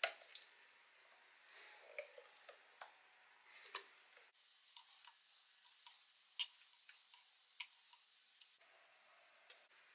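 Faint, irregular soft clicks and wet squelches of a spatula scraping thick sorrel purée out of a NutriBullet blender cup into a glass bowl.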